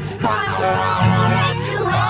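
Music: an experimental indie-pop song with electronic beats, a steady bass line under wavering, sliding high tones, swelling louder about a quarter second in.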